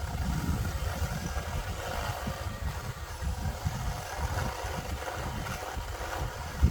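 40 V Black & Decker 12-inch battery chainsaw running steadily, its motor and chain giving a continuous whir, with a brief louder knock near the end.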